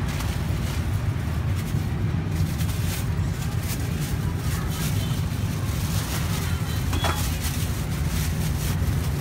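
Steady low rumble of street traffic, with plastic bags crinkling and rustling as they are handled.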